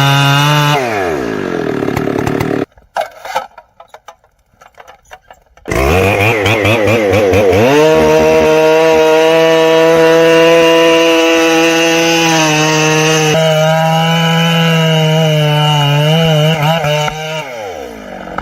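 Chainsaw engine running at high revs through wood. Its pitch drops about a second in, and it goes nearly quiet for about three seconds. It then revs back up sharply and holds a steady high pitch through a long cut, before the revs fall off near the end.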